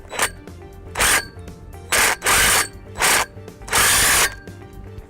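Cordless impact driver with a 13mm socket tightening the bracket bolt, in five short bursts of hammering about a second apart.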